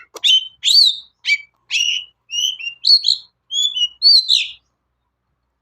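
Long-tailed shrike (cendet) singing a fast run of short, varied chirps and whistled notes, about ten in quick succession, then stopping near the end.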